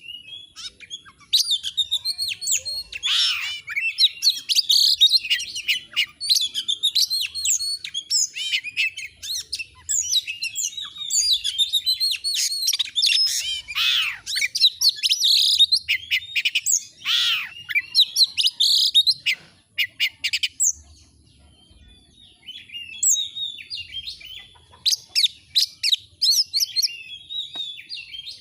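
Oriental magpie-robin (kacer) singing a loud, fast, varied song of whistles, chirps and trills. It breaks off for a couple of seconds about two-thirds of the way through, then resumes more softly.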